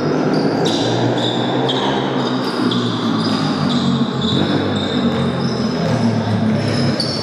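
Basketball game play on an indoor court: the ball bouncing on the floor amid shuffling feet, with repeated short high squeaks.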